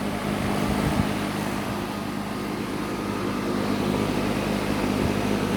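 2005 Tempstar central air conditioner's outdoor unit running with a steady hum, its condenser fan rattling a little. The owner says the fan rattles like this sometimes in very hot weather and takes it as normal.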